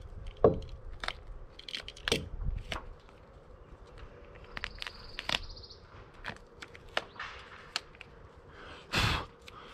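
ZIP System flashing tape being cut with a utility knife and its backing peeled off: a string of small crackles and clicks. There is a sharp click about half a second in and a longer rasp near the end.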